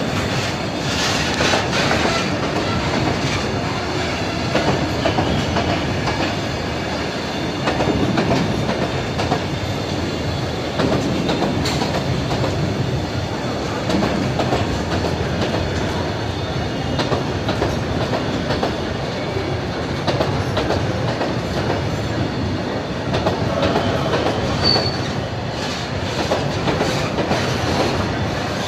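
Freight train of oil tank wagons rolling past at close range: steady rumble of steel wheels on the rails with a clickety-clack as the bogies cross the rail joints, and a brief high squeak near the end.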